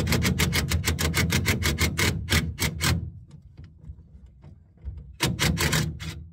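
Cordless DeWalt impact driver hammering as it loosens a bolt on a bed-rail bracket: a rapid rattle of impacts over the motor's hum for about three seconds, then a shorter burst about five seconds in.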